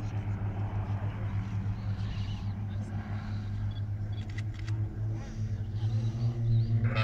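Steady low drone of a small aerobatic propeller plane's piston engine, growing louder near the end.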